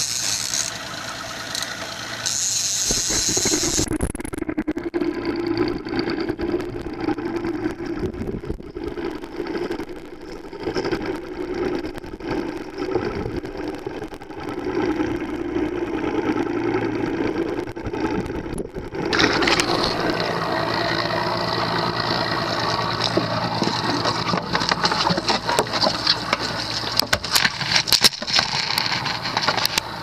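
Boat engines running steadily. About four seconds in the sound turns muffled, losing its high end, and about nineteen seconds in it comes back full and a little louder with a broad hiss.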